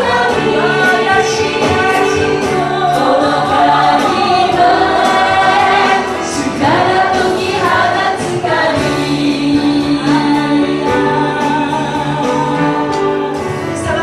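Live church worship music: several women singing a Japanese praise song together into microphones over piano, bass and guitar accompaniment.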